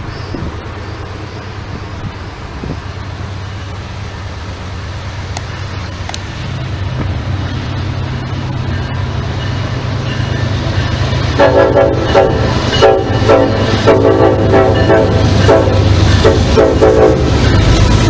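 An approaching train rumbles, growing steadily louder. About two-thirds of the way in, the locomotive's horn starts a horn show: a quick string of short blasts and toots.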